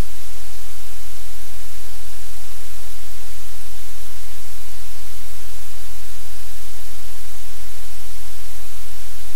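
Loud, steady static hiss with a deep hum underneath, unchanging throughout.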